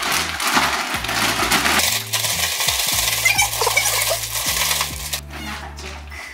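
Plastic zip-lock bag crinkling and rustling as it is shaken to coat marinated chicken pieces in potato starch and cornstarch; the crinkling stops about five seconds in. Background music plays underneath.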